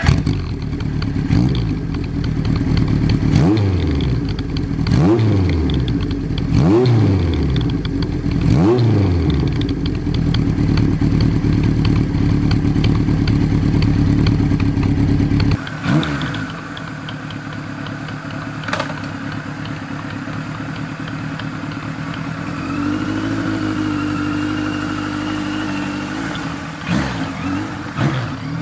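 Kawasaki air-cooled Z1000's inline-four engine idling, blipped about five times in the first nine seconds, each rev rising and dropping back quickly. It then settles to a steady idle, quieter from about fifteen seconds in.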